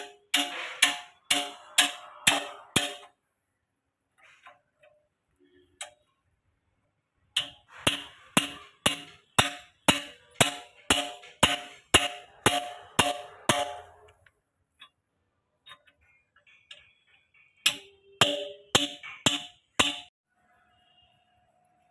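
Metal hammering on steel: three runs of sharp blows, about two a second, each with a ringing metallic tone, with pauses between the runs.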